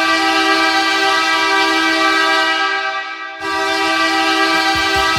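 Hockey arena goal horn sounding two long blasts, the first dipping briefly about three seconds in before the second starts. The goal song's drum beat comes in under the horn near the end.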